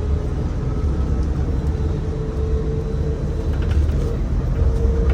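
Cabin ride noise of a moving Bukit Panjang LRT C801 rubber-tyred people-mover car: a steady low rumble from the tyres on the guideway with a steady motor whine that steps slightly higher in pitch near the end.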